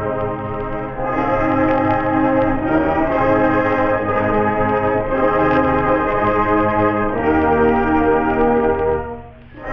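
High school band playing the school alma mater, brass-led held chords moving slowly from one to the next, with a brief break between phrases about nine seconds in. It is heard from an old 45 rpm record, with the top end cut off.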